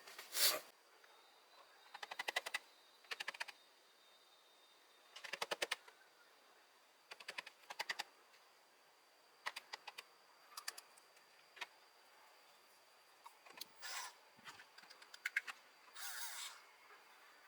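Short bursts of rapid light clicking and rattling, about a dozen of them with quiet gaps between.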